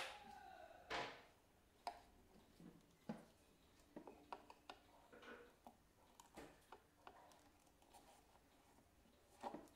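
Faint scraping strokes and small clicks of a cutter blade trimming excess edge banding at the corner of a laminated shelf, with a louder knock about a second in and another near the end.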